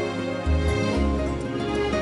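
Background music: an instrumental passage of sustained notes over a bass line that changes note every half second or so, with no singing.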